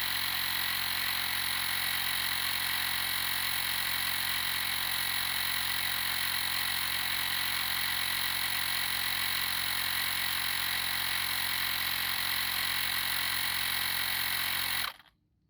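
TackLife battery-powered tire inflator's compressor running steadily with a whine while pumping air into a tire. It shuts off abruptly about a second before the end.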